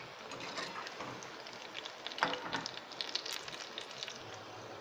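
Corn pakoras in gram-flour batter sizzling and crackling as they deep-fry in hot oil in a kadai, with a few louder pops about two seconds in.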